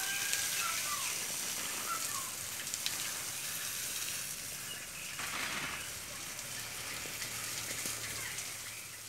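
Chicken pieces sizzling and spitting on a wire grill over a charcoal fire: a steady crackling hiss.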